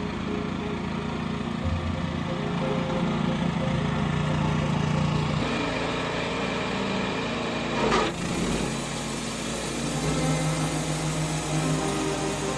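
Wood-Mizer LT15 sawmill's small engine running steadily, its pitch shifting slightly as the load changes, with a brief louder burst about eight seconds in.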